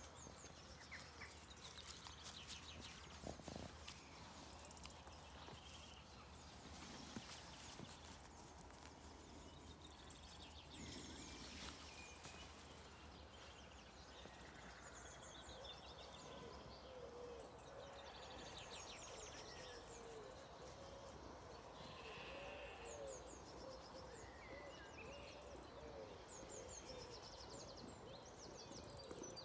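Faint dawn chorus: several songbirds singing, with many quick high chirps and trills throughout. From about halfway a low run of repeated notes joins in.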